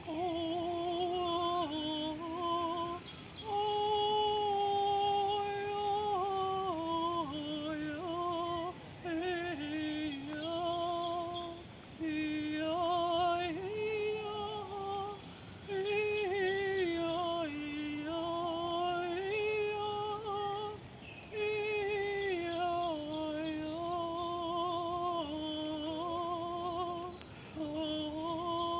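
A woman singing without words, holding long notes with vibrato that step up and down in pitch, broken by brief pauses.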